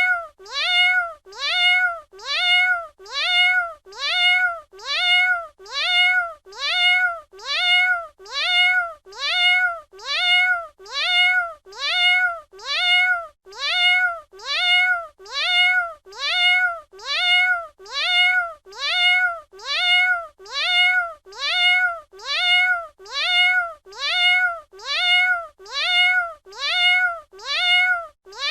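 A domestic cat's meow repeated over and over, about once a second. Each copy is identical: the pitch rises, holds and then falls, so it is one meow looped as a sound effect.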